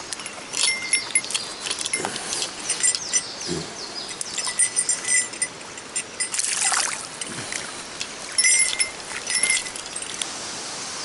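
Mountain stream running, with short metallic jingles and scattered clicks coming and going over the water.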